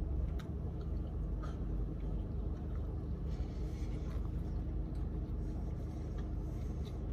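Steady low rumble of a car's interior, with a few faint soft clicks as two people chew bites of mochi donut.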